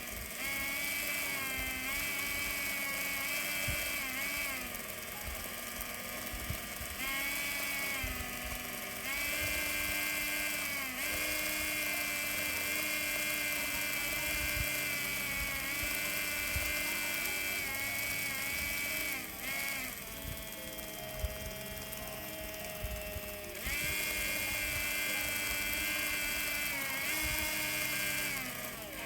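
Small electric motor of an N-gauge model train, a TOMIX M-9, running with a steady whine whose pitch drops and rises again several times as its speed is changed.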